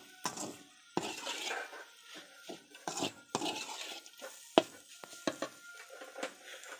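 Spatula stirring and scraping stir-fried amaranth greens in a pan: irregular scrapes and clinks against the pan, with one sharp knock about four and a half seconds in.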